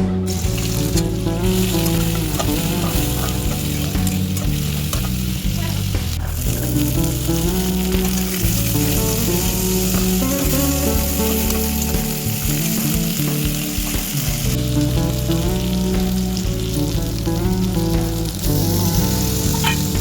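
Food sizzling steadily as it is stir-fried in a hot pan, with background music underneath.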